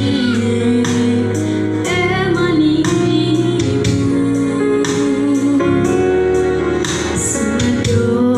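A young girl singing a Banten regional song into a handheld microphone over accompaniment music, holding long, wavering notes.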